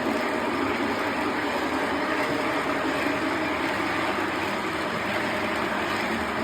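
Lionel Vision Line Commodore Vanderbilt O gauge model locomotive and train running along the track: a steady, even running noise that eases slightly.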